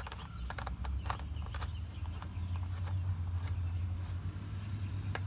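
Oil drain plug being threaded back into the oil pan by hand: scattered light clicks and taps over a steady low rumble.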